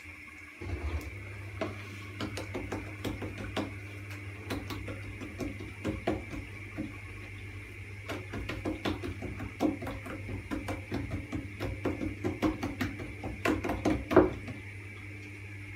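Hands patting and slapping soft yeast dough flat on a wooden board: a run of soft slaps and knocks that gets busier in the second half, with the loudest slap near the end, over a steady low hum.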